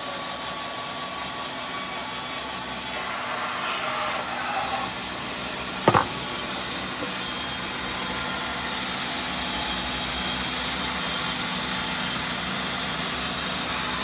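Griggio BS-740 RS3 band resaw running steadily, its band blade cutting a wooden beam pushed through by the roller power feeder. A single sharp knock comes about six seconds in.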